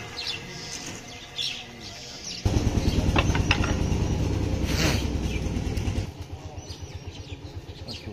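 Small birds chirping in short repeated calls. From about two and a half seconds in, a louder low rumble with a fast even pulse, like a small engine, sets in for about three and a half seconds and then drops off abruptly.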